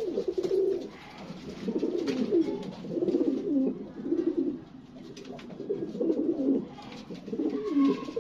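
Domestic pigeons cooing: repeated bouts of low, warbling coos, each under a second long, with short pauses between them.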